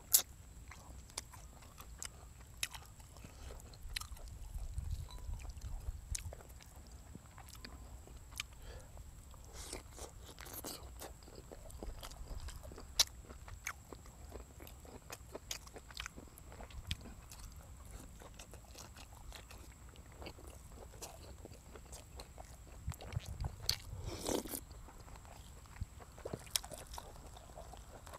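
Close-miked mukbang eating sounds: a man chewing and biting on braised pork leg and noodles, with many wet mouth clicks and smacks. One louder crunch comes a few seconds before the end.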